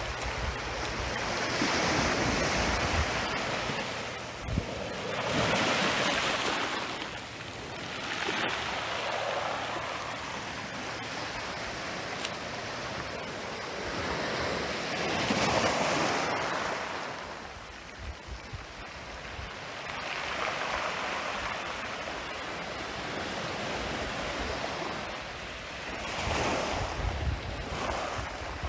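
Small waves on a calm sea breaking and washing up a pebbly beach. The wash swells and fades every few seconds.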